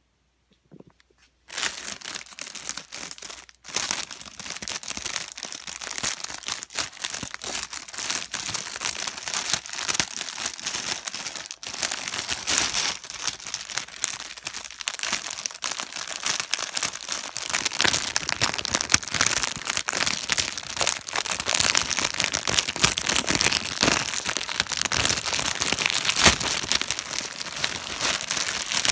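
Continuous crinkling and crumpling of material being handled, starting about a second and a half in, with a short break a couple of seconds later.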